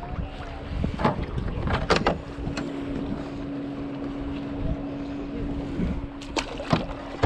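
Wind buffeting the microphone while a crappie is unhooked by gloved hands, with a few sharp handling clicks and knocks, then a small splash as the fish is tossed back into the water a little after six seconds. A steady low hum runs underneath and stops at about the same moment.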